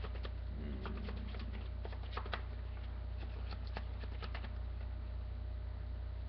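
Trading cards being shuffled by hand: a run of quick light flicks and clicks for the first four seconds or so, then only a steady low electrical hum.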